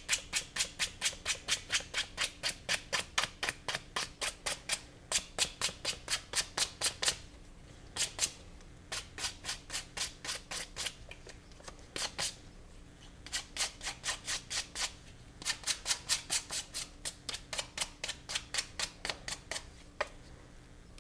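Sandpaper rubbed by hand on a pecan-wood knife handle in quick back-and-forth strokes, about three to four a second, in runs broken by short pauses.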